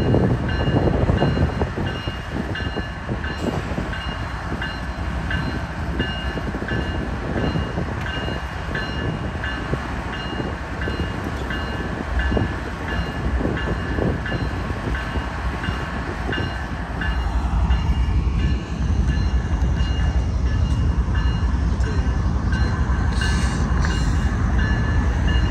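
GE ES44AC diesel locomotive running close by with a steady low rumble that grows louder about two-thirds of the way in. A grade-crossing warning bell rings steadily over it.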